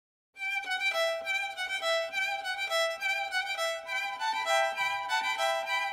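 Background music: a violin playing a melody, beginning a moment after the start.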